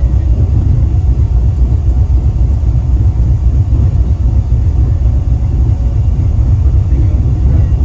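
Loud, steady low rumble whose level flutters rapidly, with no distinct events.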